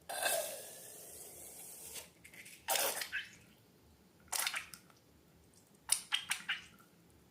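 Slime squishing and popping in short, sticky bursts: about three clusters, roughly a second and a half apart. These follow a hissing rush of air over the first two seconds.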